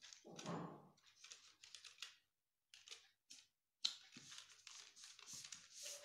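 Faint rustling and rubbing of craft paper sheets as they are handled and pressed flat by hand onto a glued sheet, in irregular bursts, with a sharp click a little past the middle.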